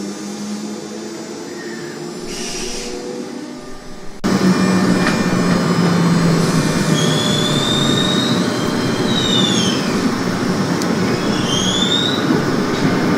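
Electric train running: quieter at first, then about four seconds in it cuts suddenly to loud running noise with a low hum. High squeals that rise and fall follow, typical of wheels squealing on rails.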